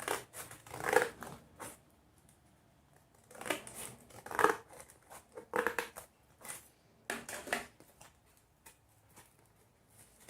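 Scissors cutting paper, snipping in four short runs of cuts over the first eight seconds, then only a few faint ticks.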